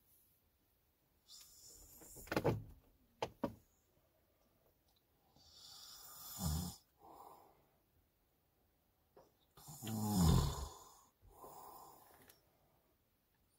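A man snoring in his sleep, picked up by a phone inside a truck cab: three rasping snores about four seconds apart, with softer breaths between.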